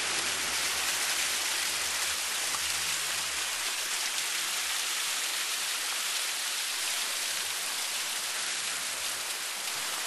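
Water spilling and splashing down a landscaped boulder waterfall, a steady hiss.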